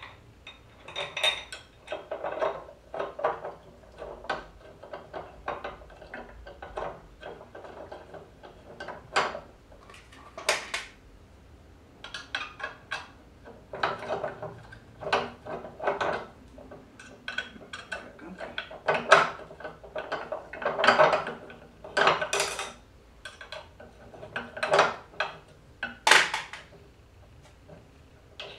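Aluminium plates and small metal hardware clinking and knocking together at irregular intervals as they are handled and fitted during assembly.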